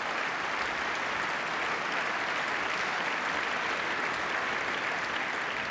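A large hall audience applauding steadily, many hands clapping at once.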